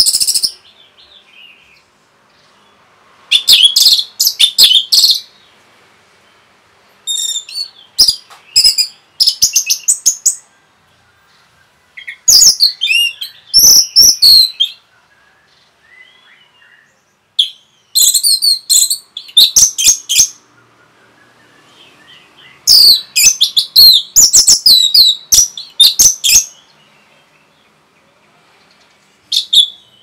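Orange-headed thrush (anis merah) singing in loud bursts of rapid, varied high notes. There are about six phrases of two to four seconds each, with pauses of a few seconds between them.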